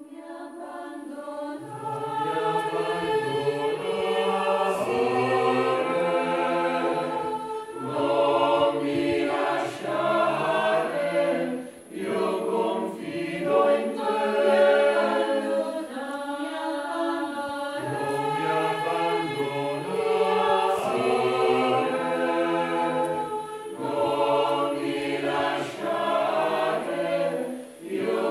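A choir singing in harmony, in phrases with short breaks between them.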